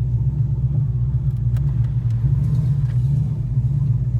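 Cammed 6.4-litre (392) HEMI V8 with long-tube headers and 3-inch exhaust, heard from inside the car's cabin, running steadily with a low, even rumble and no revving.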